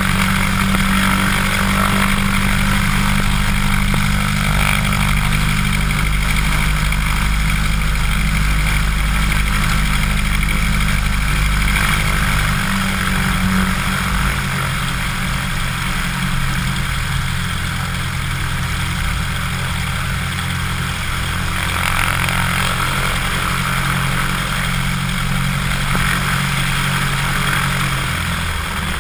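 Cessna 150's four-cylinder Continental O-200 engine and propeller running at low power while taxiing, heard close up from outside the cabin. The engine note shifts about halfway through as the rpm changes.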